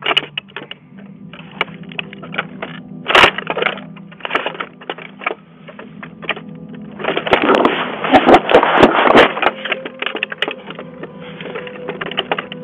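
A string of sharp cracks and knocks, with one hard crack about three seconds in and a dense flurry of loud bangs from about seven to nine and a half seconds in. It has the thin, cut-off sound of a doorbell camera's microphone.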